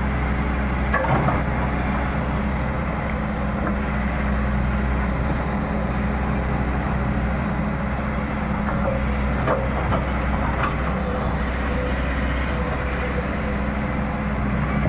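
Excavator's diesel engine running steadily under load, with a few sharp cracks and knocks about a second in and again around ten seconds in.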